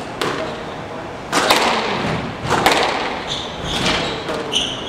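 Squash rally: the ball cracks off the racquets and thuds against the walls and floor in a series of sharp hits about a second apart, ringing in the enclosed court. Near the end, rubber-soled shoes squeak in short high chirps on the wooden court floor.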